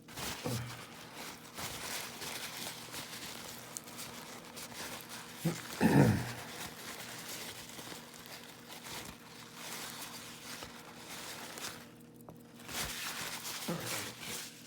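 Paper towel crinkling and rubbing as grease is wiped from the parts of a gutted padlock, with a brief voice-like sound about six seconds in.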